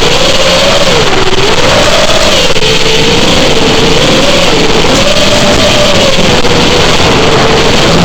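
FPV drone's electric motors and propellers whining, the pitch rising and falling with the throttle, over a heavy rush of prop wash and wind noise.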